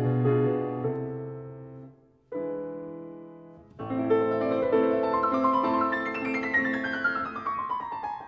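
Solo piano music: sustained chords that fade away, then from about four seconds in a flowing run of notes that descends steadily in pitch.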